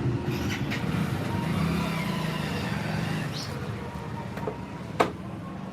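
A motor vehicle engine running, fading after about three seconds, with a single sharp click about five seconds in.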